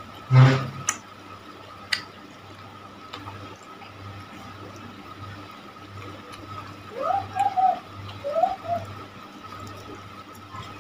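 Close-miked wet chewing of macaroni and cilor, with a loud thump about half a second in and a few sharp clicks. Later come two short rising pitched sounds.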